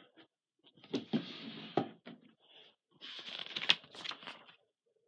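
Rustling and handling noise in two bursts about a second long, with a few sharp clicks.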